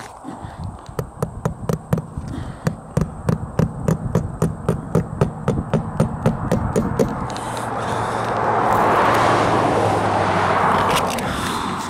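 Hammer driving a nail into wood: a quick, even run of about four strikes a second for some six seconds. Then a few seconds of rushing noise with a low hum.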